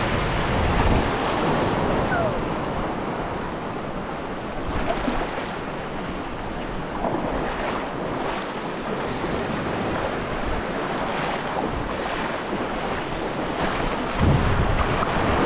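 Ocean surf washing on the shore, with wind buffeting the microphone in low rumbles near the start and again near the end.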